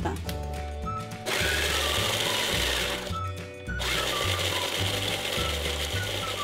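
Small electric food chopper running, its blade grinding vanilla cookies into fine crumbs. It runs in two pulses: the first starts about a second in, it stops briefly around three seconds, then runs again.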